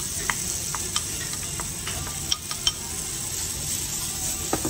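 Okonomiyaki batter sizzling on a hot flat-top griddle: a steady hiss broken by a few sharp clicks.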